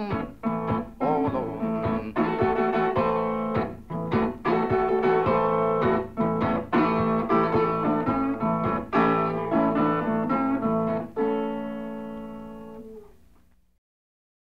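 Blues guitar music, notes and chords picked in a closing instrumental passage. It ends on a held chord that rings out and fades to silence near the end.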